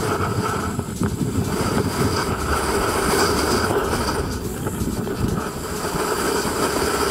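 BPM Imports F-35 e-bike riding at speed on asphalt: steady tyre and wind rumble on the handlebar mic, with a faint steady whine from the electric motor.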